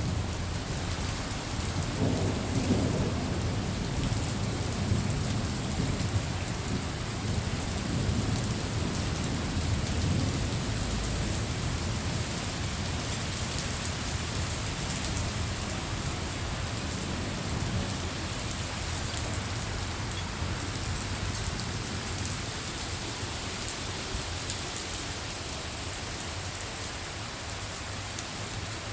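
Thunderstorm: steady rain falling, with rolling thunder rumbling through the first several seconds and dying away, leaving the rain alone.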